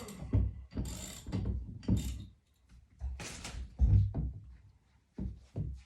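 Uneven bursts of mechanical clicking and clunking from tools and metal TV-mount hardware being worked, about one run a second with short pauses between.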